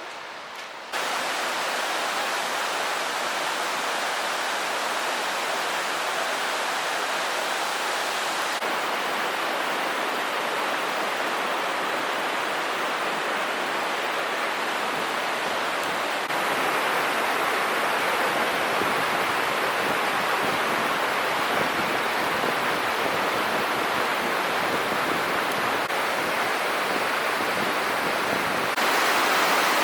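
Steady rush of fast-flowing water, like a mountain stream or waterfall, jumping a little louder at a few points along the way.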